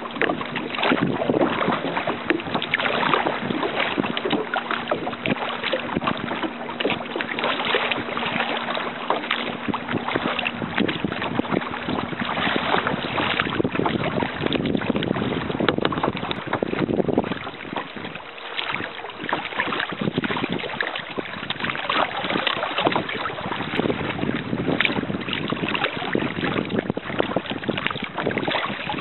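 Kayak paddling on choppy lake water: paddle strokes splashing and water slapping against the hull, with wind buffeting the microphone. A faint steady hum runs under it for about the first twelve seconds.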